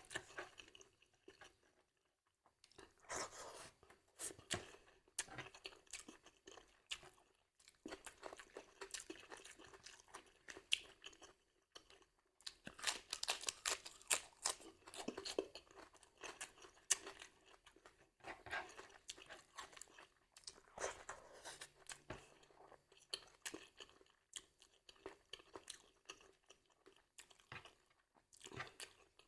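A person chewing food close to the microphone, with many short, crisp crunches in irregular clusters and brief pauses between.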